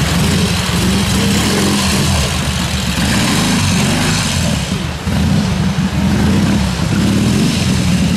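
Triumph pre-unit parallel-twin trials motorcycle engine pulling at low revs, the note rising and falling as the rider works the throttle up a rocky stream, over the rush and splash of the water; the engine drops off briefly about five seconds in.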